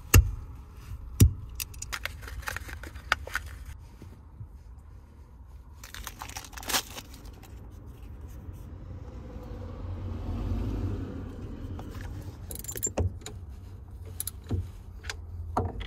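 Locking pliers (vise grips) snapping shut to crimp copper ring lugs onto battery cable, with sharp metal clicks, the loudest two about a second apart at the start. After that come scattered clinks and scrapes of cables and tools being handled, over a low rumble that swells in the middle.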